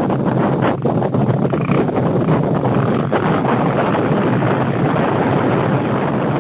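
Dirt bike engine running as the bike rides off across the field, heard through heavy wind buffeting on the microphone.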